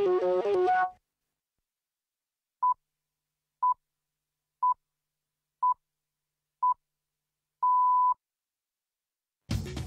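BBC Greenwich Time Signal 'pips': five short steady beeps one second apart, then a longer sixth beep marking the exact top of the hour. A music sting ends about a second in, and music comes back in near the end.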